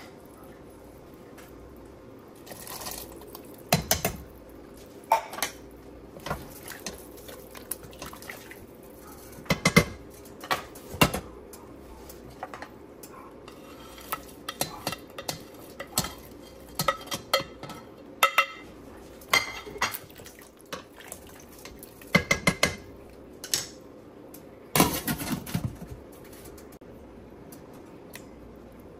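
Spoons and a plate clinking, knocking and scraping against a stainless steel cooking pot as food is tipped in and the stew is stirred: scattered sharp clinks in irregular clusters, loudest about ten seconds and twenty-five seconds in, over a faint steady hum.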